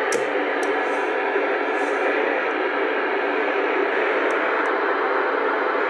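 Steady FM radio static hiss from a VHF receiver tuned to the ISS downlink on 143.625 MHz, with no voice coming through.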